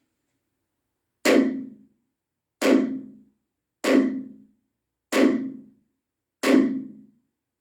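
Hammer driving a nail: five heavy, evenly paced blows about every second and a quarter, each ringing briefly before the next.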